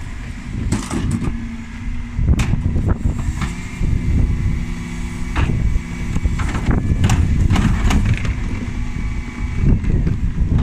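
Dennis Eagle Elite 6 refuse lorry's diesel engine running at the kerb, with a steady mechanical whine from about three seconds in until about nine seconds. Scattered knocks and clatters are heard throughout.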